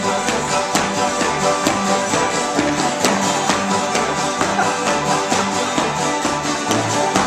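A string band jam with acoustic guitars strumming a steady, brisk tune, with sharp taps in time from dancers' feet on the wooden floor.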